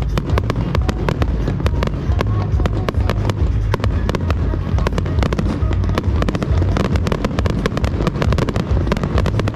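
Fireworks finale barrage: a dense, unbroken run of sharp shell bursts, several every second, over a constant deep rumble.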